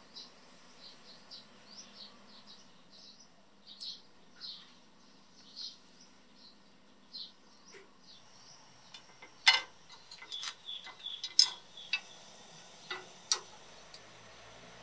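Small birds chirping in short, high, repeated calls. In the second half comes a run of sharp clicks and knocks, the loudest about two-thirds of the way through.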